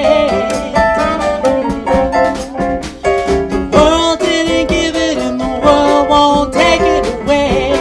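A spiritual performed in a jazz style: a pitched lead melody with bends over accompaniment and a steady beat.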